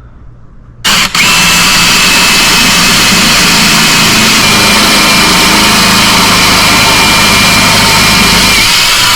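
A power tool's motor starts suddenly about a second in and then runs loud and steady, with a high whine over dense noise.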